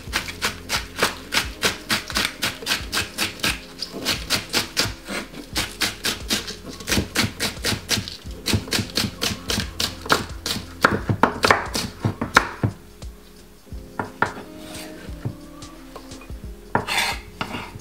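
Kitchen knife chopping spring onions on a wooden chopping board: quick, even taps of the blade against the board, several a second, which stop about two-thirds of the way through and give way to a few scattered taps.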